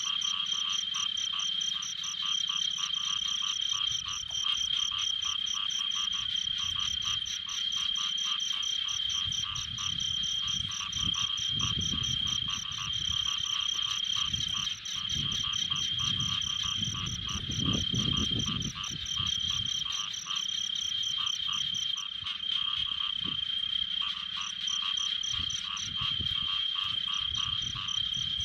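A steady chorus of frogs calling in fast, even pulses. From about ten to twenty seconds in there is low sloshing of water as a hoe is worked through the pond mud.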